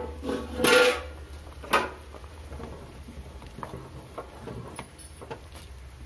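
A few metal clanks and scrapes on a steel cooking pot in the first two seconds, one of them ringing briefly, then a ladle quietly stirring simmering vegetable masala with soft bubbling.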